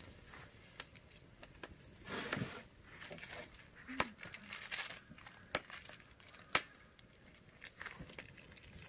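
Small plastic instant-ramen seasoning packets crinkling and being torn open by gloved hands, with scattered rustles and a few sharp ticks.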